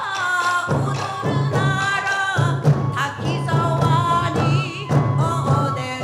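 Japanese folk performing-arts music: a singer's gliding melody over pulsing drums, the drumming pausing briefly a couple of times.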